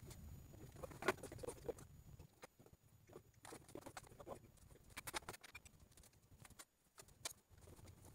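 Faint, scattered clicks and light knocks from the aluminium frame and fabric hull of a folding kayak being handled and lifted, busier for the first two seconds and sparser after.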